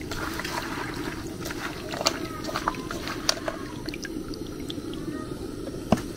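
Palm nut juice draining and trickling through a metal colander into a plastic bowl, with scattered small clicks and drips, and one sharper knock near the end.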